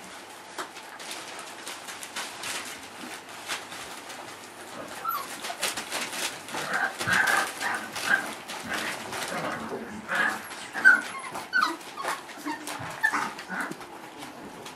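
Four-week-old Boerboel puppies whimpering and yipping in short, high calls that start about five seconds in and come often after that, over crinkling of newspaper under their paws.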